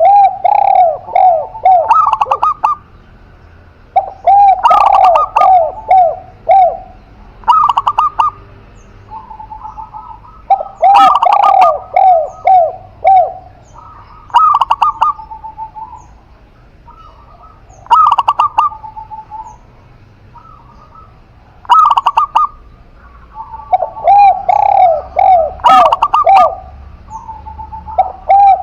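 Cage doves cooing: a spotted dove and a zebra dove calling over and over. Each phrase is a quick run of short coo notes, with held coos between the phrases.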